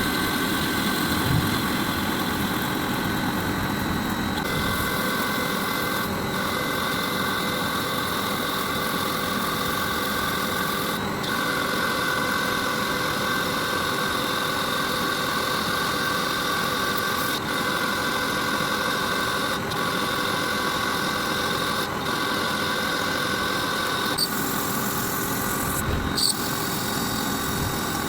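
An electric power tool motor running steadily, with a whine of several steady tones and a few brief breaks.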